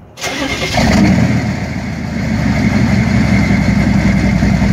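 6.5L turbo diesel V8 truck engine running, heard at the exhaust. It comes up about a second in, then settles into a steady, evenly pulsing idle.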